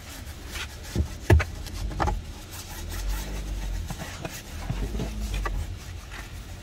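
Brush scrubbing and rubbing on a car's surfaces, with a few sharp knocks, the loudest a little over a second in.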